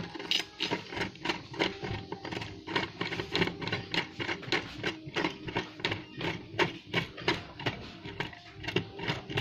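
Irregular clicking and ticking of glass and metal, a few clicks a second, as a threaded metal rod is screwed into a crystal chandelier's glass body. Faint music plays underneath.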